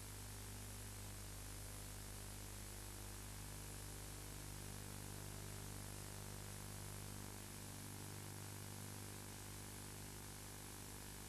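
Steady hiss with a low mains hum and its overtones, the noise of a degraded videotape transfer; no other sound stands out.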